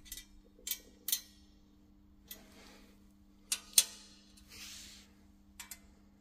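Hex key clicking and tapping against the button-head Allen bolts and chrome silencer heat shield of a Triumph Rocket 3 as the bolts are undone: sharp, irregular metal clicks, with a short scrape about four and a half seconds in.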